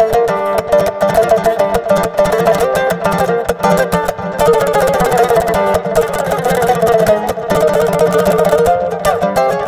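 Music of quickly plucked string instruments, a fast run of notes over a steady low note.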